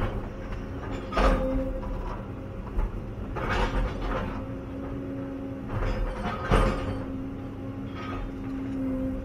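Inside the cab of a Cat 316E L excavator: the diesel engine runs steadily under a hydraulic hum that swells and fades as the controls are worked. Sudden loud knocks and crashes come about a second in, about three and a half seconds in, and about six and a half seconds in, as the machine works through brush and trees.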